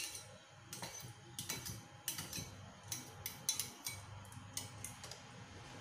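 Stainless steel kitchen tongs clinking against ceramic bowls while serving noodles: about a dozen light, irregular clicks.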